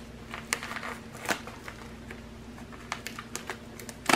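Scissors snipping into the end of a white packaging envelope, with the packaging crinkling as it is handled: a few short, scattered snips and rustles.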